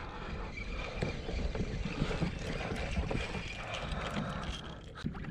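Wind on the microphone and water moving against a plastic kayak hull, a steady low rushing noise.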